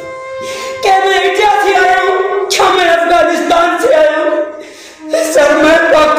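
A voice singing a mournful song in long, wavering held notes, with a short break about five seconds in.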